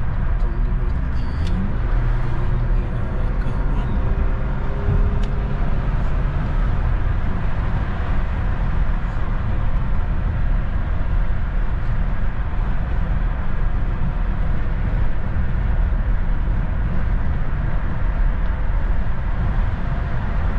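Steady road and engine noise of a moving car, heard from inside the cabin, an even low rumble that holds level throughout.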